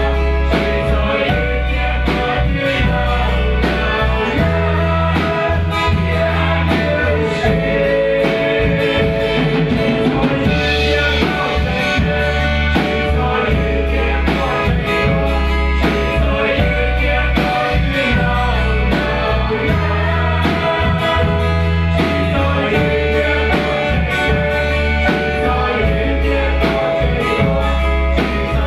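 A mixed group of men and women singing a Christian worship song together into microphones through a PA, over amplified backing music with a heavy bass line and a steady beat.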